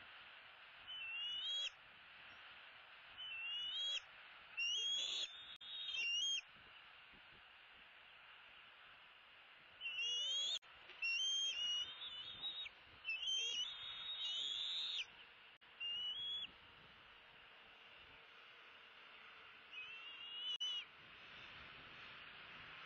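Bald eagles calling: short bouts of high, thin whistled notes that rise in pitch, repeated with pauses between bouts, over a steady faint hiss.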